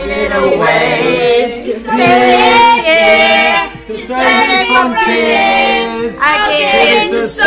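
Several people, women and children among them, singing and shouting loudly together, with long held, wavering notes.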